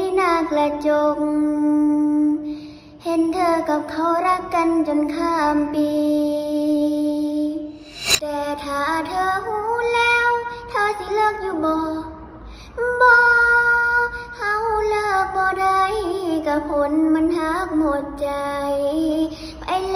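A young girl singing a slow song solo, holding long notes and sliding between pitches, with short breaks for breath. There is one sharp click about eight seconds in.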